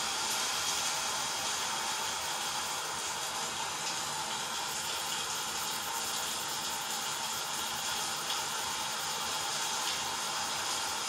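A steady, even hiss, strongest in the upper range, with no gusts, breaks or changes.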